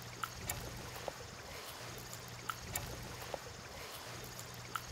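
Gently flowing river water, with a few faint clicks as a spinning rod and its line are handled.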